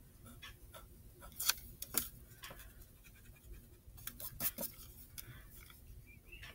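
Pencil-type drawing tool scratching on paper in short, irregular sketching strokes, with sharper, louder strokes about a second and a half and two seconds in and a quick flurry of them around four seconds in.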